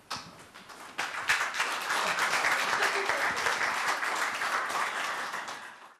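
Audience applauding: a few scattered claps, then full applause from about a second in, fading out near the end.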